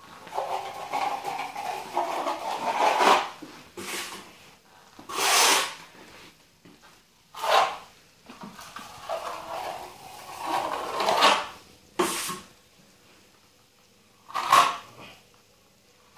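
Steel plastering trowel scraping across wet plaster on a wall in repeated strokes, with several short, louder sweeps.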